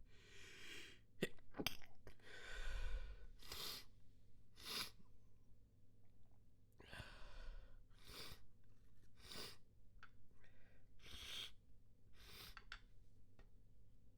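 A person's fit of stifled sneezes: a dozen or so short, held-in bursts through the nose and mouth, with sharp breaths and sniffles between them, the loudest coming close together about one to three seconds in.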